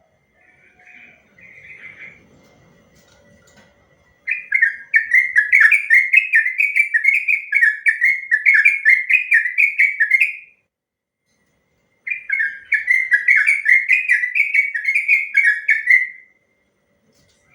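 Yellow-vented bulbul (trucukan) singing its long rolling song: fast runs of repeated bubbly, down-slurred notes, about three a second. One run starts about four seconds in and lasts about six seconds, and a second run follows after a short pause.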